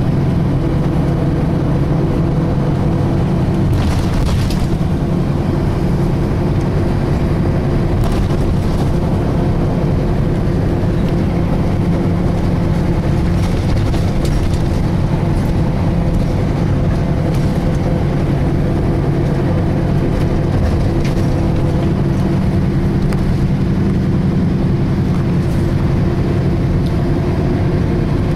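Volvo B10BLE bus heard from inside the saloon while on the move: the diesel engine and driveline run steadily, with several steady tones from the differential that the uploader finds unusual for this model. There are a few brief rattles, about 4, 8 and 14 seconds in.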